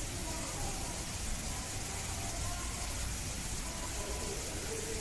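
Steady background hiss with faint, distant voices of people talking.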